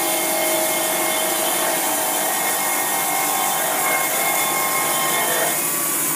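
Wood-Mizer LT70 Remote band sawmill running: steady mechanical noise with a few steady whining tones, some of which drop away about five and a half seconds in.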